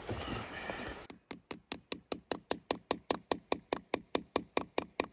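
Quick, evenly spaced hammer taps, about five a second, driving a nail into a tree trunk, starting about a second in.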